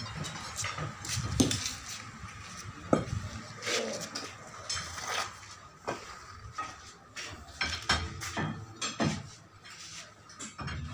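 Irregular metallic clinks and knocks from steel bars and screw jacks used to lift a brick house.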